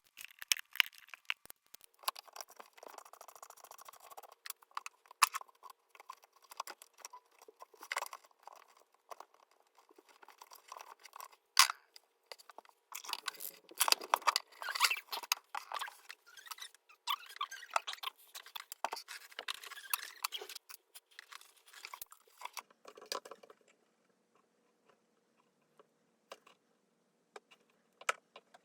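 Hands and tools working on a damaged power cord: a dense run of clicks, crunches and scraping that stops about three quarters of the way through, leaving only a faint hum and a last click.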